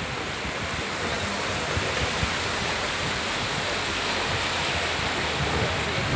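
Floodwater rushing across a street, a steady loud wash of flowing water.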